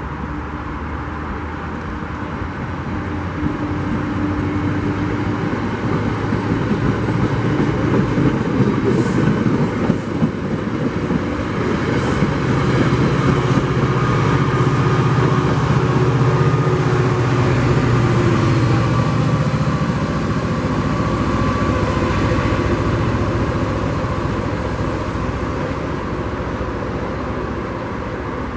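NJ Transit passenger train passing close by: a rumble of wheels on rail that builds, peaks as the coaches roll past and slowly fades. A low steady hum rises out of it in the middle, and a few sharp clicks come shortly before the peak.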